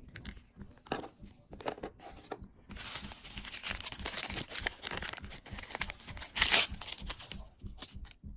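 Small plastic wrapper packet from a Miniverse capsule being torn open and crinkled in the hands, with a sharp loudest rip about two thirds of the way through. A few light clicks of plastic handling come before it.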